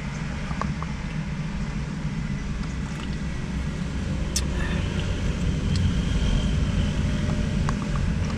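Steady low rumble of a motor vehicle running, with a few small clicks and taps over it.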